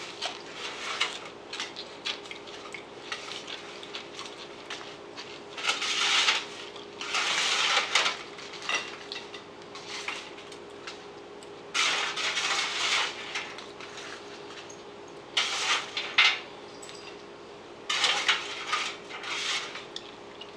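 Potato wedges being moved off a metal baking sheet onto a plate, in several separate bouts of scraping and clattering on the pan. A faint steady hum runs underneath.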